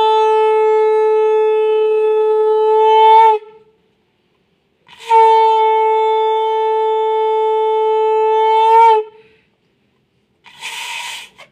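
Conch shell (shankha) blown in two long, steady blasts of about four seconds each, the pitch lifting briefly as each one ends. A short rushing noise follows near the end.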